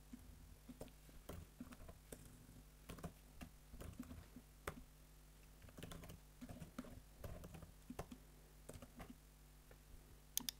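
Faint typing on a computer keyboard: irregular key clicks, with a quick pair of sharper clicks near the end.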